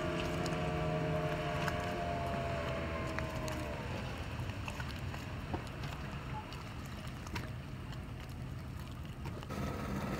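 Speedboat outboard engines running at speed, the engine note dropping in pitch about four seconds in as the boat throttles back, leaving a steady hiss of water and wind. Just before the end another boat's outboard starts to be heard close by.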